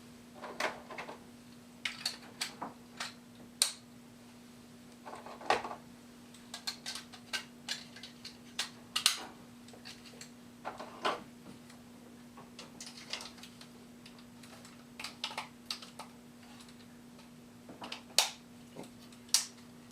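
Irregular clicks and light knocks of die-cast metal and plastic armor pieces being handled and snapped onto a robot action figure, with a faint steady hum underneath.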